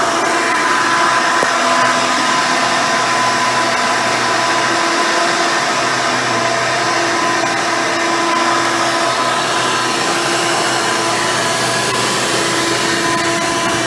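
Hoover Elite 350 upright vacuum cleaner running steadily: its swapped-in modern 7-amp motor with the original seven-blade fan makes a constant whine over a steady rush of air, with no change in pitch.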